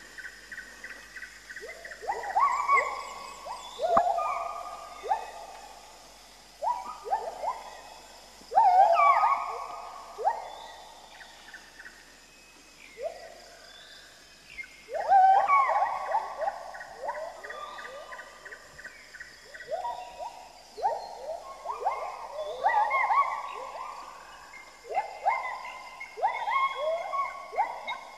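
Background soundtrack of animal calls: many short hooting calls, most dropping in pitch, overlapping in irregular clusters, over a faint steady high whine.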